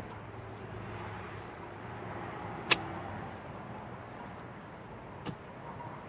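A garden pick striking hard, dry dirt: a sharp loud hit about halfway through and a softer one near the end, over steady background noise.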